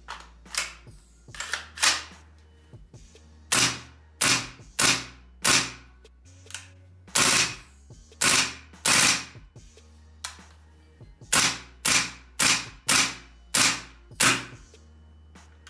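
Cybergun VFC SCAR-H gas blowback airsoft rifle firing single shots, each a sharp crack of the gas blowback action cycling. There are about eighteen shots at an uneven pace, some pairs about half a second apart, and a pause of a second or two now and then.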